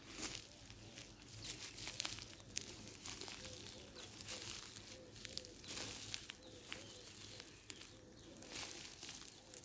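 Irregular rustling and crackling with scattered sharp clicks.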